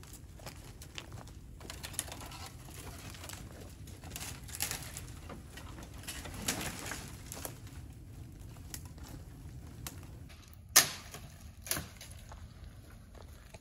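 Dry dead branches rustling and scraping as they are carried over rocks, with small twig snaps, then two sharp cracks near the end about a second apart.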